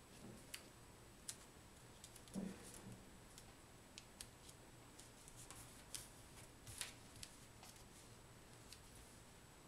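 Faint crackles and ticks of a small square of origami paper being folded and creased by hand, with a soft thump about two and a half seconds in.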